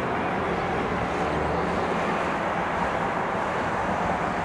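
AgustaWestland AW139 twin-turbine helicopter climbing away after take-off: a steady mix of rotor and engine noise that holds an even level.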